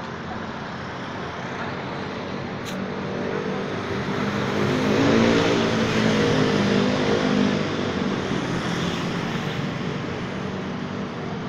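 Motorcycle engines running amid road noise, growing louder and shifting in pitch for a few seconds around the middle before easing off.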